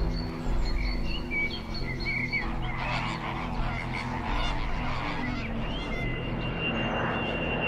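A flock of birds calling in flight, many short calls overlapping one another, over a low steady drone.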